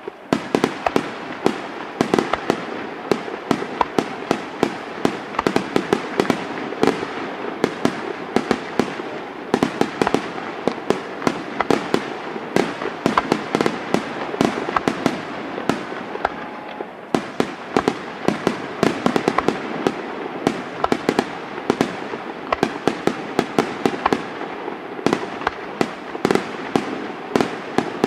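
Aerial fireworks display firing a near-continuous barrage: many sharp bangs a second from shell bursts and launches over a constant rumbling crackle.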